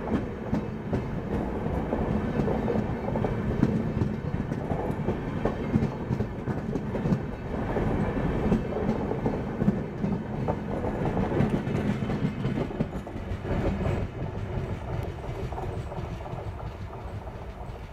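Indian Railways express passenger coaches (LHB type) passing close at speed: a steady rumble of wheels on rail with repeated clattering knocks over the rail joints, easing off over the last few seconds as the train draws away.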